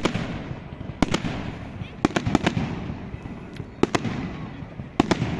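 Fireworks exploding: a series of sharp bangs, roughly one a second with a quick pair about two seconds in, each followed by a rolling echo that fades away.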